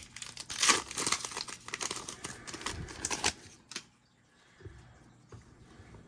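A trading card pack's wrapper being torn open and crinkled, a dense crackling for about three seconds, then a few light ticks as the cards are handled.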